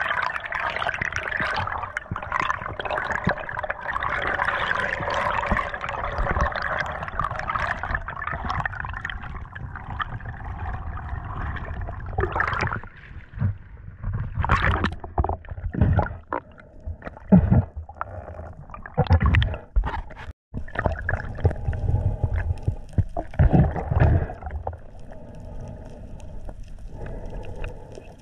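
Water heard through an action camera on a free-diving spearfisherman: a steady rushing of water and bubbles for the first several seconds, then from about the middle on irregular splashes and gurgles as the camera breaks the choppy surface and goes under again.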